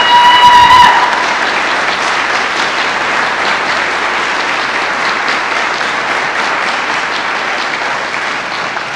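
Congregation applauding steadily, easing slightly near the end. Within the first second one voice gives a rising, held cheer over the clapping.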